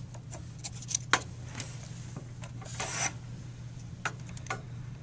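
Small clicks and scraping of a plastic cable connector being handled and pushed onto a computer motherboard header, with one longer rasping rub about three seconds in, over a steady low hum.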